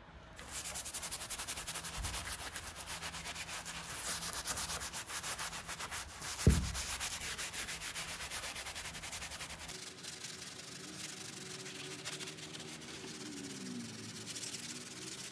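Steel wool scouring pad scrubbed rapidly back and forth over textured silk wallpaper to scour off oily stains: a fast, scratchy rasping. One dull thump about six and a half seconds in.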